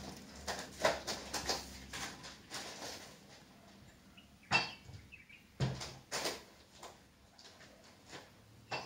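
Hamster nibbling dry rolled oat flakes off a hard floor: scattered small crunches and clicks, with a few sharper ones in the middle.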